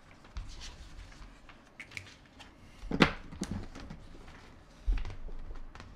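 Pens scratching on paper and small knocks on a tabletop as people draw, with one sharper, louder short sound about three seconds in and a dull thump near the end.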